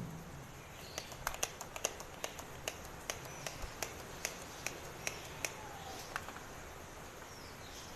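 Irregular light clicks and taps of plastic parts being handled and set down, several a second in places, from about a second in. A few faint chirps sound in the background.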